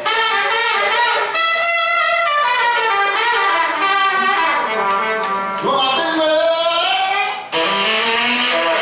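Live rock band with a horn section of trumpet and saxophones playing sustained, bending brass lines over electric guitar and drums, with a short break about seven and a half seconds in.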